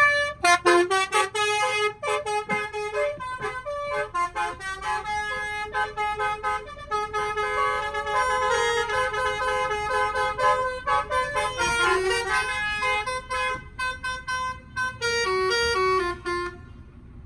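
Basuri telolet horn, a set of multi-trumpet air horns, playing a melody of quickly changing notes, with some notes held longer midway; it stops suddenly shortly before the end.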